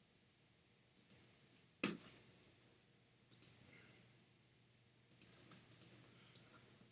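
Faint computer mouse clicks, a scattering of short sharp clicks, several in quick press-and-release pairs, with one louder, duller click about two seconds in.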